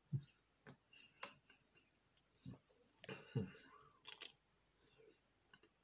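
Faint mouth sounds of biting into and eating a chocolate-coated ice cream bar on a stick: scattered soft clicks and crunches, with a cluster around the middle.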